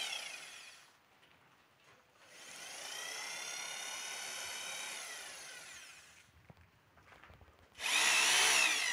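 Corded electric hammer drill run unloaded in the air, its motor whining up to speed and winding down in short trigger pulls: coasting down in the first second, a run of about three seconds from two seconds in, and another start near the end.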